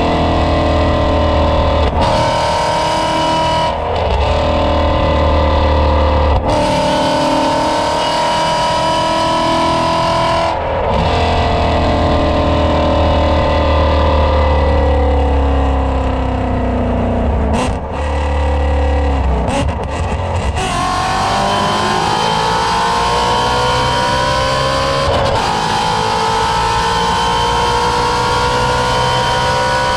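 Shelby GT350's 5.2-litre flat-plane-crank V8 heard through American Racing headers and exhaust while driving at highway speed. The engine's pitch climbs under throttle and drops back several times, with a strong low rumble.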